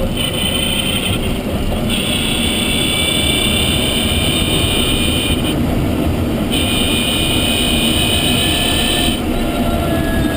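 Renault Zoe's Q210 electric drive motor whining high in pitch over steady road and tyre rumble while driving. The whine cuts in and out three times, for a few seconds each time.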